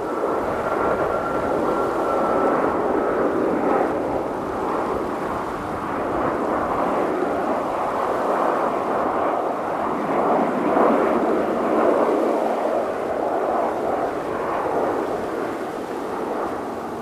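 Jet engine noise from a Boeing 737-800 with CFM56-7B engines: a continuous roar that swells and eases, with a thin steady whine that fades out within the first few seconds.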